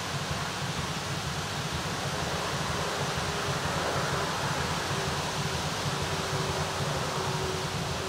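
Steady wind noise rushing over the microphone and through the trees. A faint steady hum from a distant approaching diesel train comes in about three seconds in.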